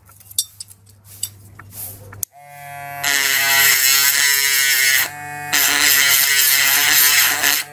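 Mini drill spinning up with a small mounted grinding stone, then a loud steady whine with a harsh hiss as the stone grinds, easing briefly midway and resuming. A few light clicks of handling come before it starts.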